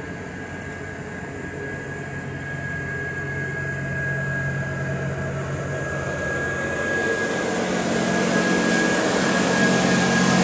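NMBS/SNCB double-deck M6/M7 electric push-pull train pulling slowly out and passing close by, its running hum and rumble growing steadily louder. A steady high whine holds throughout.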